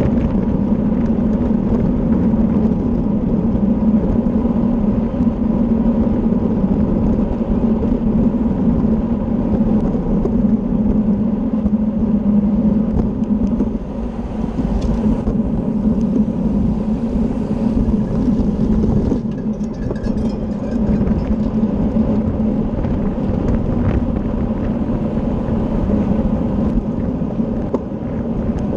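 Steady wind rush and low rumble over the microphone of a camera riding on a racing bicycle at speed.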